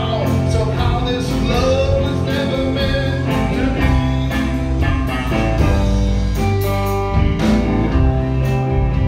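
Live rock band playing a slow song: electric guitars, bass and a drum kit with cymbal hits. A man's voice sings over it in the first few seconds.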